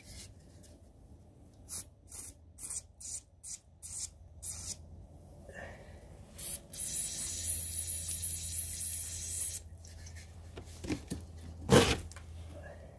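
Work with bolts and hand tools on an engine's unthreaded mounting holes: a run of short metallic clicks, then a hiss of about three seconds in the middle, and one sharp knock near the end.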